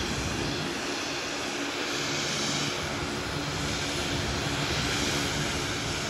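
Floatplane engine and propeller running steadily as the plane taxis on the water.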